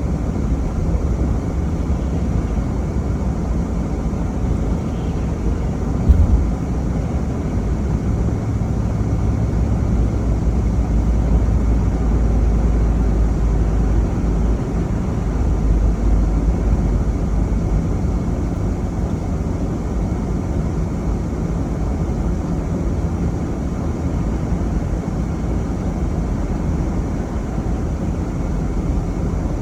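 A vehicle driving on snowy roads: a steady low rumble of engine and tyres, with a single thump about six seconds in.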